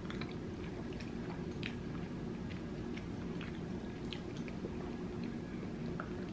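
A person chewing a mouthful of pasta with green beans and potato, small wet mouth clicks scattered through, over a steady low hum.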